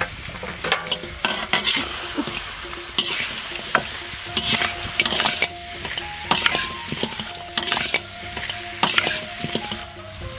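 Metal spatula scraping and knocking against a wok while pork trotters stir-fry in hot oil, with irregular strikes and swelling bursts of sizzling.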